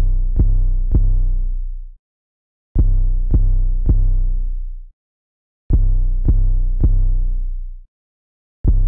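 Solo 808 bass looping, three hits per phrase, each with a deep sustained tail that fades out before a short silence. The phrase repeats about every three seconds.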